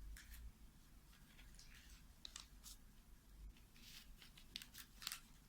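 Faint rustles and a few soft clicks of a self-adhesive sticker being handled on a broom handle, against near-silent room tone.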